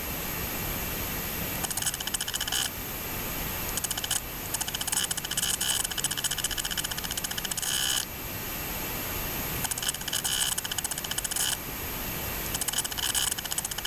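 Steady mechanical running noise with a high whine and rapid clicking that comes and goes in stretches of a second or two, like a film projector running an old home movie.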